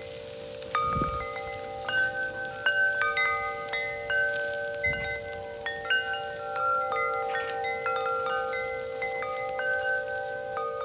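Chimes ringing: many light, irregular strikes, each ringing on as a clear tone, over a steady drone.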